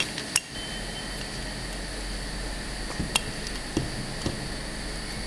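Auto insertion machine for PCB assembly running: a steady hum and whine with a few sharp clicks, and a short beep about half a second in.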